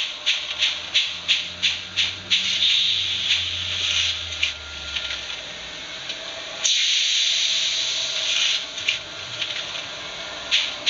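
The DCC sound decoder of a Minitrix BR 01 N-scale model steam locomotive playing recorded steam sounds through its small speaker. Chuffs come at about three a second, then merge into a steady hiss with a low hum underneath. About two-thirds of the way through, a sudden burst of steam hiss lasts a couple of seconds before fainter chuffs return.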